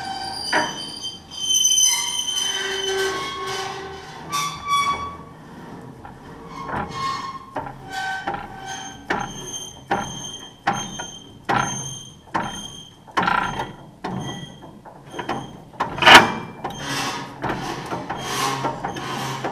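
Welger AP41 small square baler turned over by hand at the flywheel with the knotter tripped, its knotter, needle and plunger linkage squeaking and clicking metal on metal as it runs through a tie cycle. The squeaks come about once a second in the second half, and a single loud clack comes about 16 seconds in.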